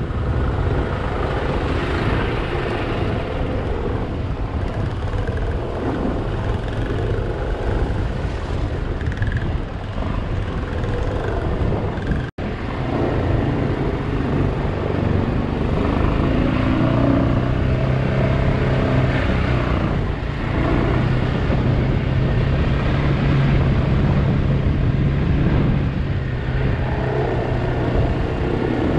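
Off-road motorcycle engine running on a dirt trail, its pitch rising and falling with the throttle, mixed with wind rushing on the helmet microphone. The sound drops out for an instant about twelve seconds in.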